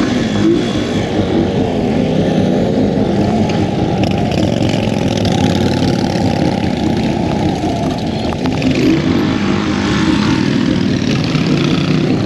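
Several motorcycle engines running as a group pulls away and rides off, the engine notes rising and falling as the bikes accelerate and shift.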